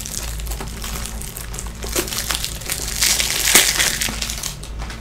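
Plastic wrapping crinkling and crumpling in the hands, a run of crackly ticks that gets denser and louder about three seconds in.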